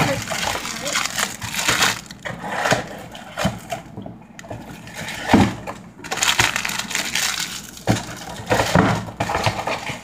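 Foil Pop-Tarts wrapper crinkling and crackling as it is handled, in irregular spells with short pauses.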